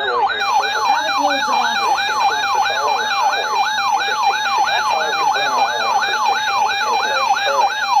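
Electronic siren tone sweeping rapidly up and down, about three sweeps a second, with a steady tone and a fast electronic beeping pattern joining it about half a second in. It is an alert alarm sounding over an emergency warning broadcast.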